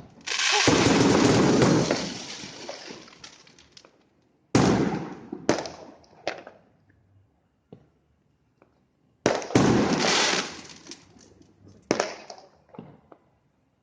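Aerial fireworks bursting, about five times: each is a sudden bang that fades off into crackle over a second or two. The longest burst comes right at the start.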